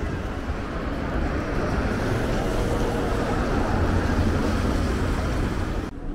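Street traffic noise: a steady low vehicle rumble that drops away suddenly near the end.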